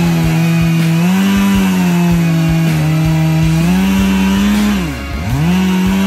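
Stihl 661 two-stroke chainsaw running at full throttle, cutting into the base of a bur oak trunk to fell it; its pitch steps up and down as the chain bites and frees in the cut. About five seconds in the throttle is let off and the engine drops toward idle, then revs straight back up.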